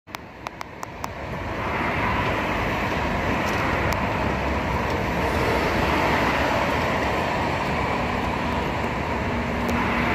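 Steady road traffic noise from cars passing on a multi-lane expressway, building up over the first two seconds and then holding even. A few light clicks come in the first second.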